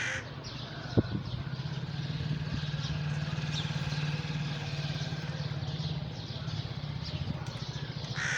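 A motor vehicle engine, likely a motorcycle, running steadily with a low, rapidly pulsing sound from about a second in until near the end. A single sharp knock comes about a second in.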